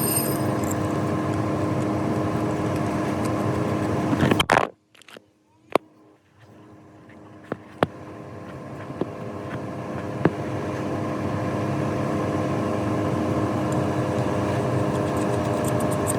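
A steady mechanical hum with several fixed tones that cuts off abruptly about four and a half seconds in. A few sharp clicks follow, and then the hum fades back up to its earlier level.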